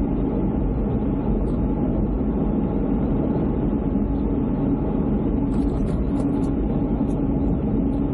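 Toyota Hilux Surf (215) driving at road speed, heard from inside the cabin: steady engine hum under road and tyre rumble, with a few faint clicks a little past halfway.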